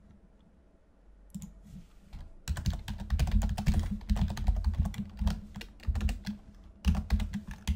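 Typing on a computer keyboard: a few scattered keystrokes, then a fast run of key clicks from about two and a half seconds in, with a brief lull near the end.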